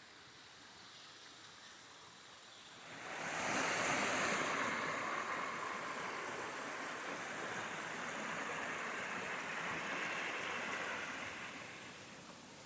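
Rushing water of a gorge waterfall, a steady roar that comes in suddenly about three seconds in and fades near the end.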